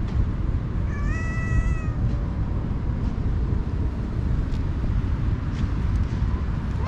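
A stray cat meows once, a drawn-out call about a second long, over a steady low background rumble.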